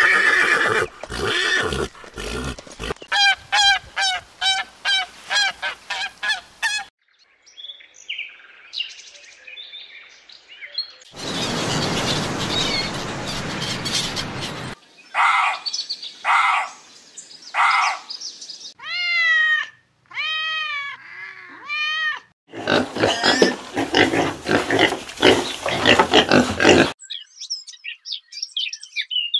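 A string of different animal sounds one after another: a horse calling in the first few seconds, then a gull giving a run of loud cries that rise and fall, and high chirping near the end.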